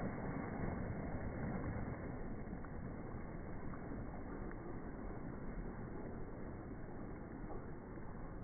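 Slowed-down sound of a dive splash and churning swimming-pool water: a dull, low rushing noise with no high end, a little louder for the first two seconds and then easing.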